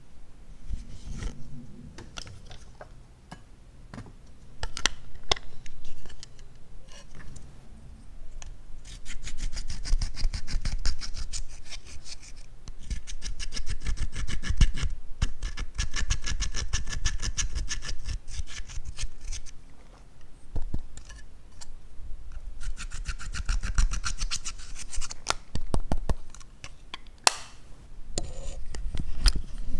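Pressed eyeshadow scraped out of a plastic palette with a hard tool: long runs of fast, rasping scratch strokes, the second run shorter. Scattered clicks and taps of the plastic palette being handled come between them.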